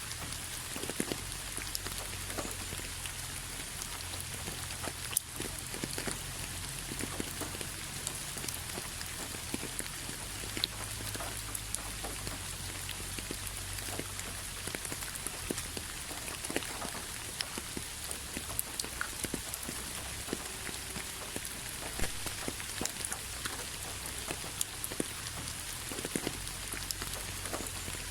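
Steady rain with many individual drops ticking on a surface.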